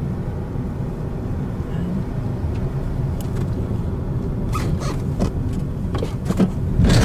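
Car driving along a road: a steady low rumble of tyres and engine, with a few brief knocks and rattles in the second half.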